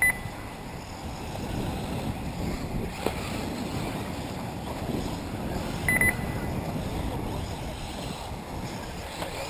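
Wind on the microphone over the faint running of 1/8-scale electric RC buggies racing on a dirt track. Short high electronic beeps sound once at the start and twice about six seconds in.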